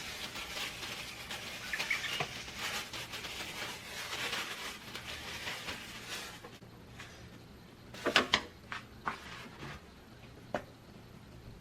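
Rustling and small clicks of food containers and packaging being handled. The sound is busy for the first six seconds, then quieter, with a short cluster of clicks about eight seconds in and a single click near the end.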